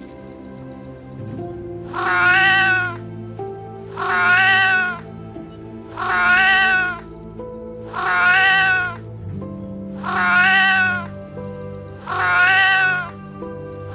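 A cat meowing: the same long, drawn-out meow comes six times at even intervals about two seconds apart, starting about two seconds in, over background music.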